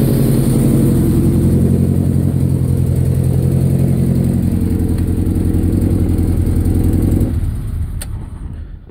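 Honda F-series four-cylinder engine idling with one dead cylinder, then switched off about seven seconds in and running down, with a single click just after.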